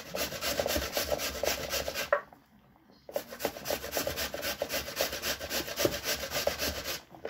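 A raw potato being grated by hand on a kitchen grater: quick, even rasping strokes, about five a second. The grating stops for about a second partway through, then starts again.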